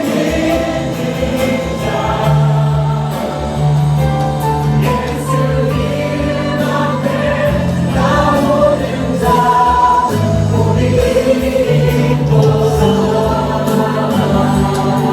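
A choir singing a Christian hymn over instrumental accompaniment with sustained bass notes.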